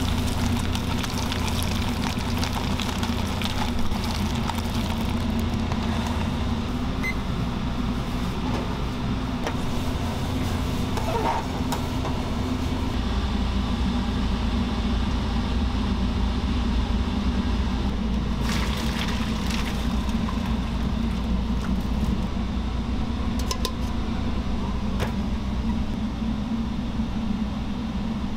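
Steady low mechanical hum of commercial kitchen equipment running, with a few brief clicks and rustles from macaroni being poured and cooked.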